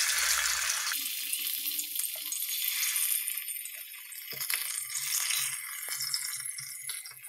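Marinated sardines sizzling in hot oil as they are laid into the pan one by one. The sizzle is loudest at the start, eases off, then swells again about five seconds in as more fish go in.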